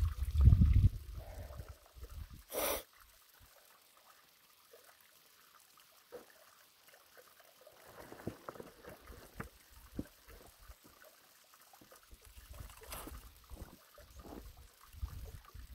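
Black plastic pond liner sheeting crinkling and crackling as it is handled, with one short loud rustle about two and a half seconds in and scattered small crackles later. Wind buffets the microphone at the start and again near the end.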